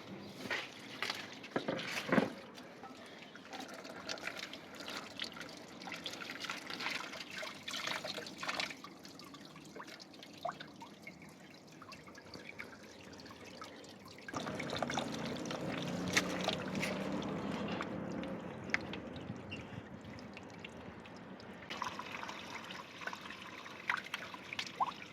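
Water trickling and dripping, with scattered clicks and knocks from handling. About two-thirds of the way through, the flow grows fuller and steadier for several seconds, then eases back.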